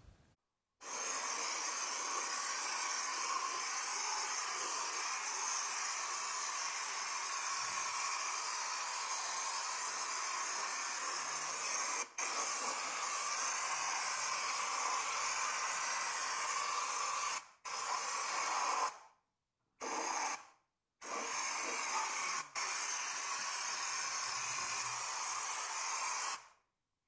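Compressed-air spray gun fed from a screw-on can, hissing steadily as it sprays coating. The hiss cuts off abruptly when the trigger is released: briefly about halfway through, several times in the last third, and for good near the end.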